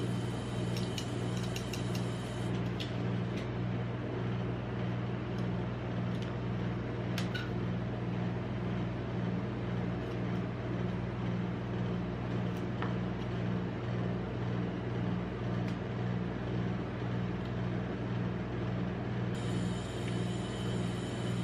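Steady low mechanical hum from the rolled-ice-cream cold plate's refrigeration unit, with a few light clicks of metal scrapers against the pan and cup.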